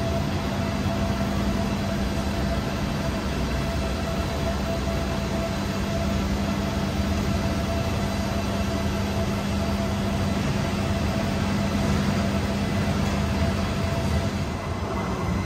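Diesel train engine running steadily at a station, a low rumble with a constant hum.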